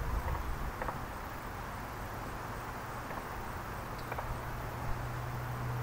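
Outdoor street ambience: a steady hiss with a low engine hum that grows louder in the second half, and a couple of faint short chirps.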